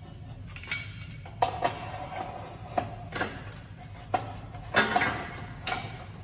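Steel parts clinking and knocking against the plates and frame of a hydraulic shop press while it is set up to press a bearing onto an axle shaft: about eight sharp metallic knocks at uneven spacing, each with a short ringing tone, over a low steady hum.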